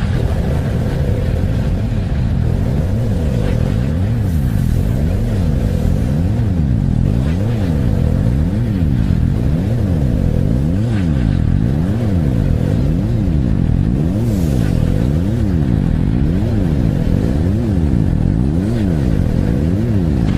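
Loud, steady low rumbling drone with a steady hum above it, swept by a whooshing tone that rises and falls about every second and a quarter.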